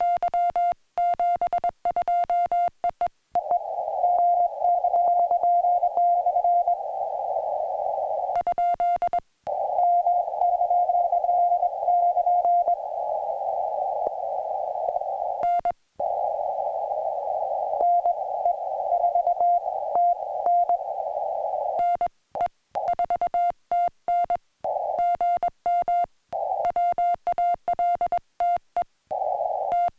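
Morse code (CW) from a portable ham radio, a tone of about 700 Hz keyed in dots and dashes. At the start and again from about two-thirds of the way in, the keyed tone is clean with silent gaps. In between, the Morse tone is heard in a narrow band of steady radio hiss.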